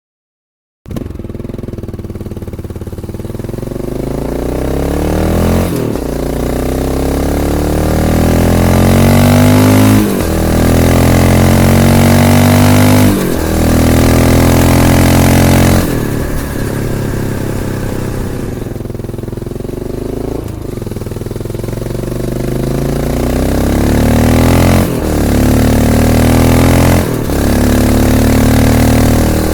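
Honda XR650L single-cylinder four-stroke engine through an aftermarket slip-on exhaust, accelerating under way. The engine pitch climbs and then drops at each of several gear changes. The sound cuts in suddenly about a second in.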